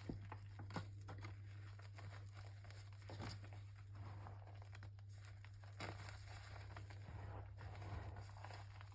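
Faint, irregular crunching and crackling, typical of gritty chalk being bitten and chewed, over a steady low hum.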